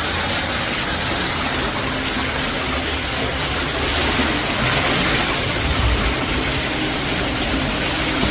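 Steady rush of running water, as floodwater flows in a flooded bathroom.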